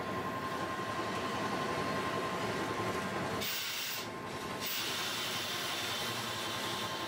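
Tosaden street tram 604 running along its track, heard from inside the cab: a steady rumble of wheels and running gear with a faint steady whine. A high hiss comes in about three and a half seconds in, breaks off briefly and returns.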